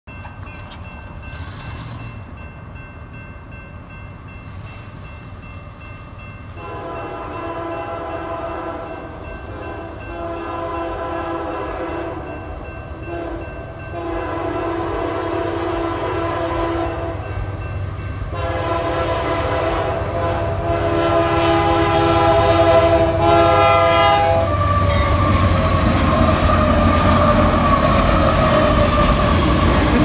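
Union Pacific AC44CTCWE diesel locomotive's air horn sounding a crossing signal of several long blasts, the last and longest ending about 24 seconds in, while the grade-crossing bell rings. The locomotives and auto rack cars then rumble past close by, louder toward the end.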